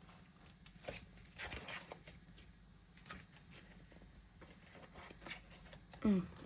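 Faint, scattered handling noises: paper and card rustling, with a few soft taps and clicks.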